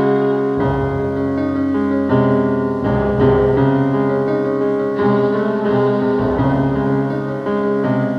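Atmospheric dungeon synth played on a keyboard synthesizer: slow, held chords over low bass notes, the chords changing every second or two.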